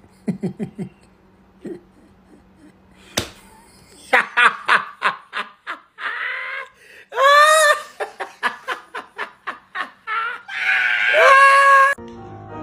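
Stifled giggling, then a single sharp smack about three seconds in, typical of a hand full of cream slapping onto a face. Loud, rapid laughter and long high-pitched squeals follow.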